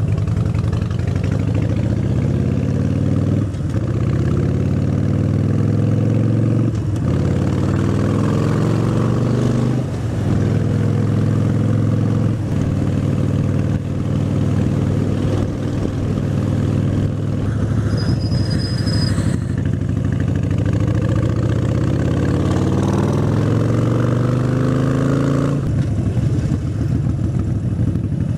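Harley-Davidson Sportster 72's air-cooled V-twin running under way, the pitch climbing and dropping back again and again as it pulls up through the gears. About three seconds before the end it settles into a steady lower note as the bike eases off.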